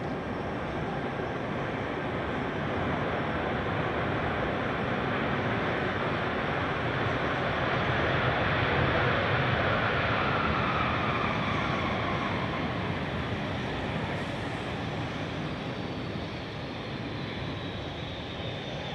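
Jet engines of a Boeing 747-400F freighter rumbling as it rolls out along the runway after landing. The sound swells to its loudest about halfway through and then eases off, with a thin whine that drops in pitch as the aircraft goes past.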